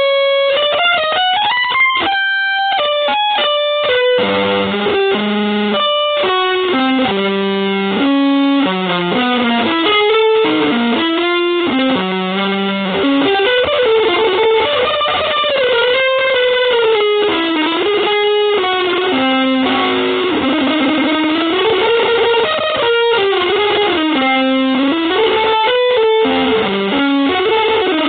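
Solo electric guitar playing a single-note line, with fast, widely leaping notes at first and then long slides and bends up and down in pitch through the second half.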